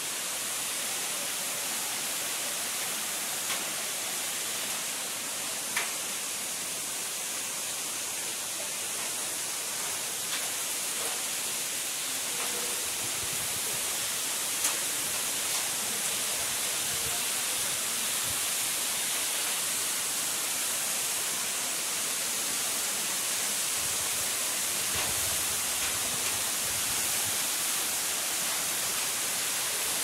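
Steady rush of a waterfall, an even hiss of falling water with a few faint ticks.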